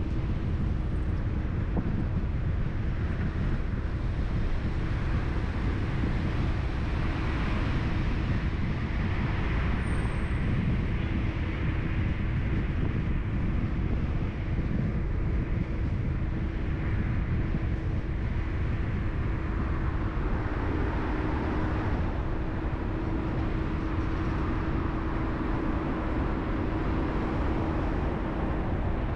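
Car driving along a city road: steady engine and tyre-on-road rumble, with a faint hum that holds one pitch throughout.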